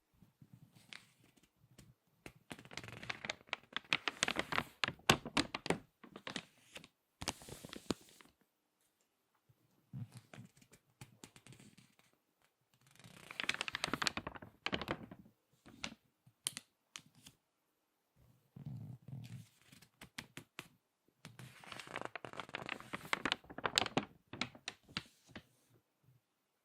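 Crinkly magazine pages being squeezed and turned by hand: three long bouts of dense crinkling, with sparser crackles between.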